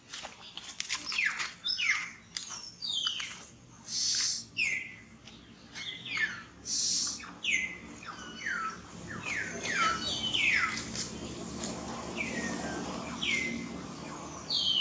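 Baby monkey crying: a string of short, high squeaky calls, each sliding down in pitch, repeated about once or twice a second.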